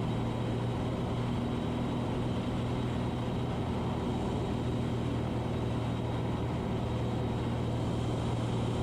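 Steady drone of a Cessna 182 Skylane's piston engine and propeller in flight, a constant low hum with an even noise over it.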